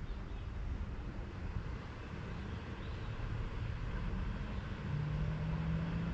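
Low, steady rumble of road traffic, with a steady engine hum coming up about five seconds in as a vehicle passes.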